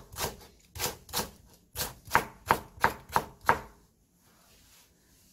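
Chef's knife chopping green onion (the white part of a Korean leek) on a wooden cutting board: about nine quick, sharp knocks, roughly three a second, stopping a little past halfway.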